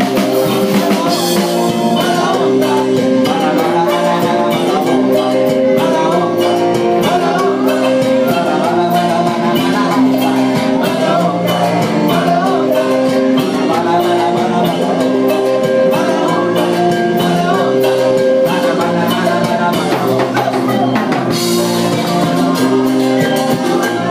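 Live psychedelic cumbia band playing: combo organ, drum kit and electric guitar over a repeating stepped bass line, with steady rhythmic percussion.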